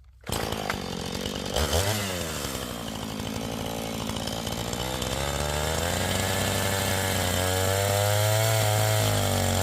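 Two-stroke chainsaw running hard, coming in abruptly about a quarter second in. Its engine note swoops near the start, then wavers and slowly climbs.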